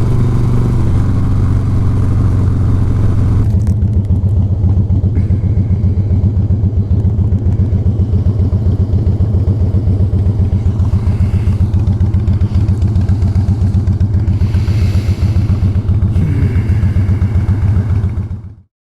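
Harley-Davidson Fat Boy's V-twin engine running, steady at first, then about three and a half seconds in changing to a slower, lumpy beat of distinct firing pulses. The sound cuts off abruptly near the end.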